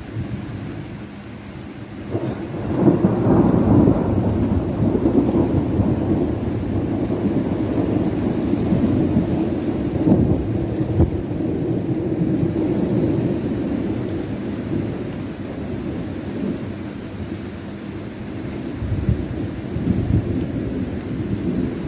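Long roll of thunder that breaks in about two seconds in, rumbles low for around ten seconds, dies down, then swells again near the end, over a steady hiss of rain.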